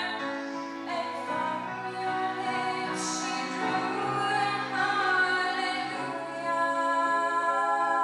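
A small vocal group of three young women and a man singing in harmony into microphones, holding long notes.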